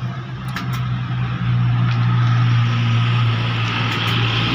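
An engine running steadily with a low drone that swells louder about a second and a half in, with a few light metallic clicks over it.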